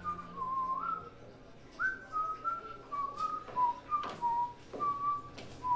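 A person whistling a tune in short notes and slides. Several sharp knocks sound in the second half.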